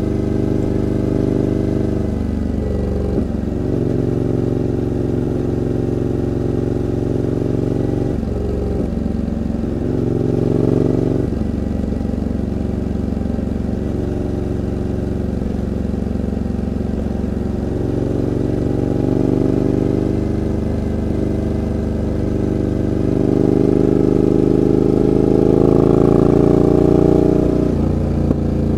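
Suzuki V-Strom 1000's V-twin engine through an LCI Parts twin-end carbon exhaust, running under way. Its note shifts several times as the throttle and revs change, then climbs and gets louder near the end.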